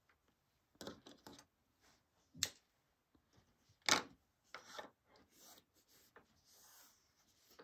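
Double-sided sewing tape being handled and stuck onto fabric: a few faint, short scratchy sounds and clicks, the sharpest about four seconds in.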